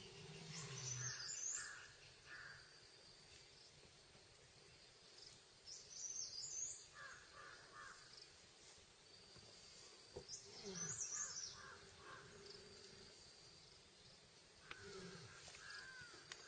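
Faint outdoor ambience with bird calls: a short group of high chirps and a few quick pulsed notes, repeating about every four to five seconds.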